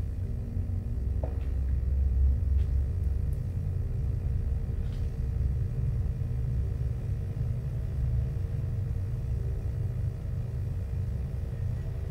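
A steady low rumble, with a faint steady hum above it and a few faint ticks in the first few seconds.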